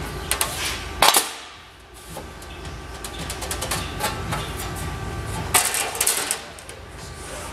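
Sheet aluminum panel being handled at a slip roll: metallic rattles and clanks as the panel is lifted out of the rolls and fed back in, with one sharp clank about a second in and another burst of clatter near the end.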